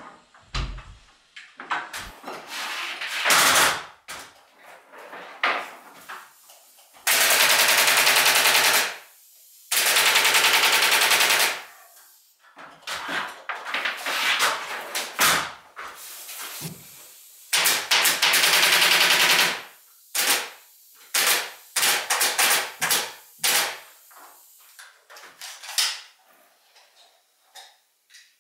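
Pneumatic stapler firing in rapid machine-gun-like runs of one to two seconds each, with single clicks and knocks between the runs, as it fastens insulation to the ceiling.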